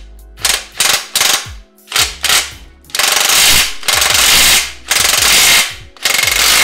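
Ryobi ONE+ HP 18V brushless 1/2-inch cordless impact wrench (P262) hammering on a dirt bike's rear axle nut to loosen it. It starts with four short trigger bursts, then runs in four longer bursts of under a second each. The nut had been too tight to shift with a hand wrench.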